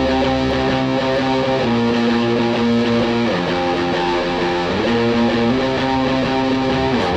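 Music: slow, held guitar chords that change every second or two.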